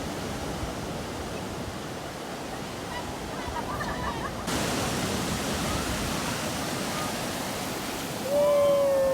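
Waves washing on a beach, a steady rushing that turns suddenly louder and brighter about halfway through. Faint voices sit in the background, and near the end a person's voice gives one loud, long call that falls slowly in pitch.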